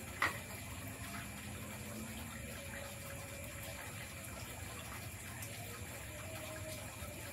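A metal cup set down on a small camp table gives one short clink just after the start. Under it runs a steady night-time forest background of high, constant insect calls and an even, water-like rushing hiss.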